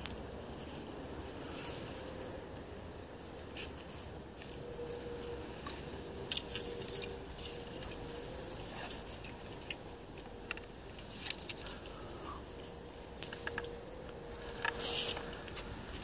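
Open-air riverbank ambience: a small bird's short, high, descending chirps come several times over scattered clicks and rustles close by and a faint steady hum.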